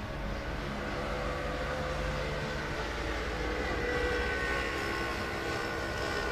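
Harz narrow-gauge steam train passing behind the trees: a steady rumble of the locomotive and carriages. Thin high tones come in after about three seconds.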